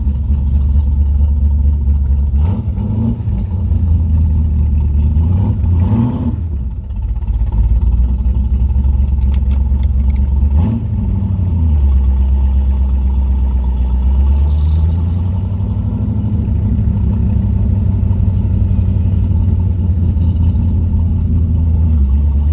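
1969 Corvette's 383 small-block V8 running through side-mount exhaust, a deep steady idle with brief revs about 2, 6 and 10 seconds in and a slower rise in engine speed near two-thirds of the way through.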